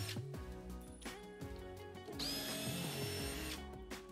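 Cordless drill backing out crate screws: its motor winds up about two seconds in and runs for just over a second with a high whine.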